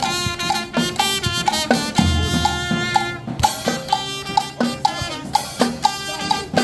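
Upbeat music with a quick, steady drum beat under pitched instrument notes.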